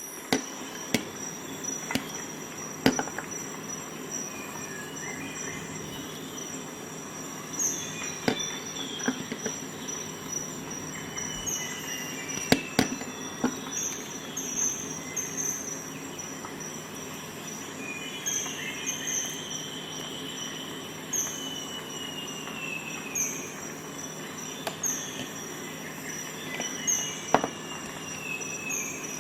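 Scattered sharp metal clicks and short squeaky scrapes as the tools of a Victorinox Swisschamp XLT Swiss Army knife are handled, pulled open and snapped shut, with a steady high thin tone behind.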